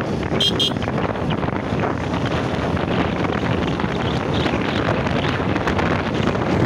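Wind buffeting the microphone of a phone on a moving two-wheeler at speed, a loud steady rush over the engine and road noise. A short high-pitched double tone sounds about half a second in.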